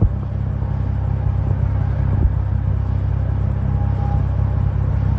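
A steady low rumbling hum, with a short knock at the start and another about two seconds in.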